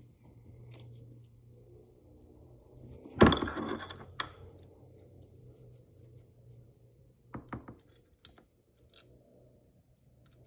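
Small metal wrenches clinking against each other and the pedal axle: a sharp metallic clank with a short ring about three seconds in, another a second later, then several light clicks, over a faint low hum.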